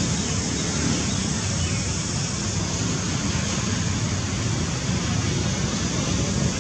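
Steady, even, low rushing background noise with nothing standing out from it.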